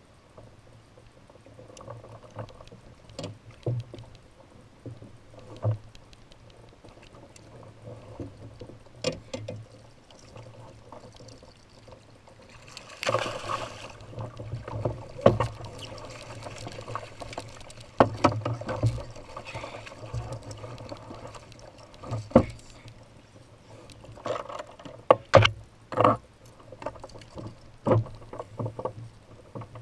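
Water splashing as a hooked spring Chinook salmon thrashes at the side of a kayak, with a loud splashing burst about halfway through. Sharp knocks and bumps come throughout, thickest near the end.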